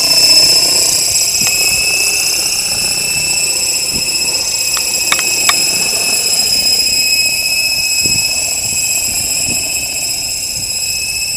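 HK-600GT electric RC helicopter in flight: a steady high-pitched whine from its brushless motor and drive gears over the whoosh of the rotor blades. A couple of sharp ticks sound about five seconds in.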